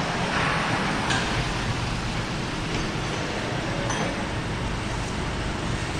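Steady noise of an underground parking garage, with a couple of faint metallic clinks, about a second in and again near four seconds.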